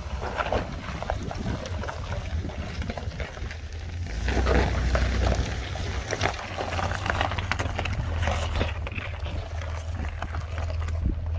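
Toyota Land Cruiser FJ80's inline-six engine running at low revs as the truck crawls over loose rock, with tyres crunching and stones clicking under them. The engine swells louder for a moment about four seconds in.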